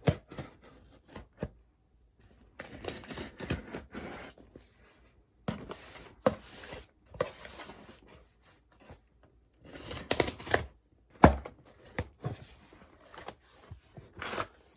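Cardboard shipping box being opened by hand: tape tearing, flaps scraping and brown packing paper rustling, in irregular bursts with a few sharp knocks.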